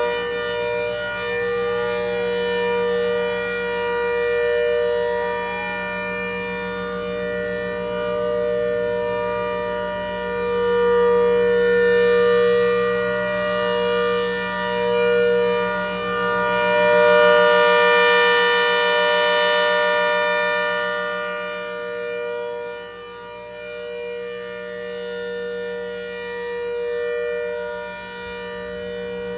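ACA Hurricane outdoor warning siren, just wound up to full pitch, holding a steady tone. The loudness swells and fades every few seconds.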